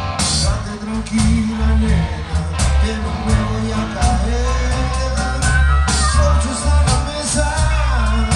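Live rock band playing loud, with electric guitars, bass and drums, and voices singing into microphones over it.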